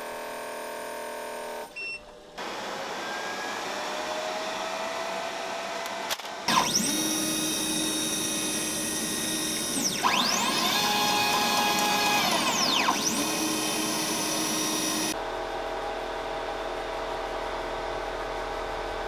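AtomStack Hurricane 55 W CO2 laser cutter running a cut. Its fans and air pump give a steady hum, and in the middle stretch the motors driving the laser head whine, rising and falling in pitch as the head speeds up and slows. The sound changes abruptly a few times.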